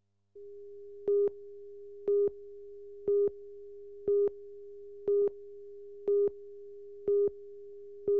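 Broadcast tape countdown leader: a steady test tone with a short, louder beep once a second, about eight beeps, marking the countdown to programme start.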